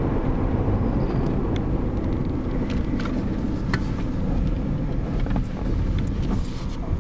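Steady road and engine noise of a car driving, heard inside its cabin, with a few faint scattered clicks.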